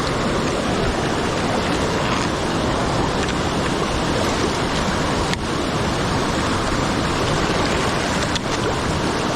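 Waterfall rushing: a steady, loud, even wash of falling water.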